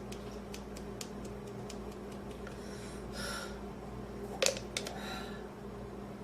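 A woman breathing quietly after a coughing fit, with one audible breath about three seconds in, over a steady low hum. Scattered small clicks run through it, and a sharp, louder click about four and a half seconds in is followed by two fainter ones.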